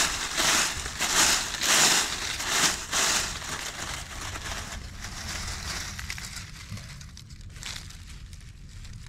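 Dry fallen leaves crunching and rustling as hands dig through leaf litter to pull up a wild onion. It comes as a quick run of loud scrapes over the first three seconds, then fainter rustling with one more crunch near the end.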